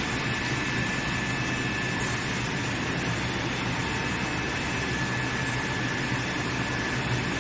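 Steady drone of workshop machinery running, with a constant high whine and a low hum that do not change.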